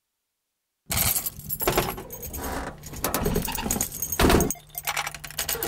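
Digital silence for about the first second, then keys jangling and rattling with handling noise inside a car, and a loud thump about four seconds in.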